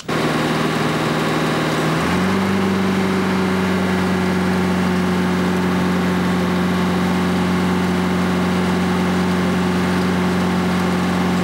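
An engine running at a steady speed, stepping up to a higher, steady speed about two seconds in.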